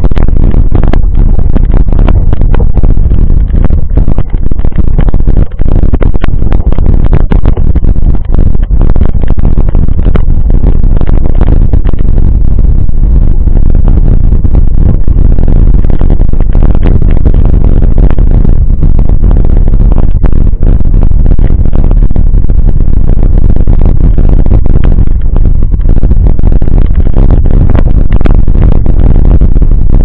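Mountain bike rolling over a rough dirt track, heard through a camera mounted on the bike: a continuous loud rumble with constant rattling and knocks from the bumps.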